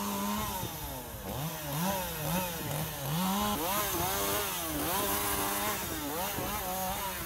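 Handheld two-stroke chainsaw cutting fallen tree branches. The engine pitch rises and falls again and again as the throttle is worked and the chain bites into the wood.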